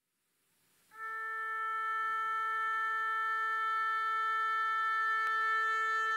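Electronic synthesizer music: a single sustained note with a bright, reedy overtone series comes in about a second in and holds steady.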